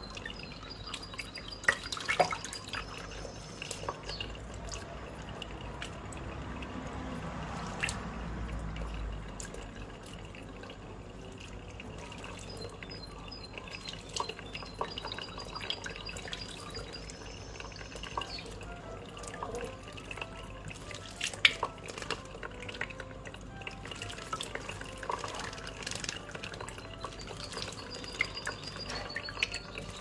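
Thin stream of tap water running into cupped hands, with irregular splashes and drips as a European goldfinch bathes in the pooled water and flutters its wet feathers. The splashing peaks in short bursts about two seconds in and again around twenty-one seconds.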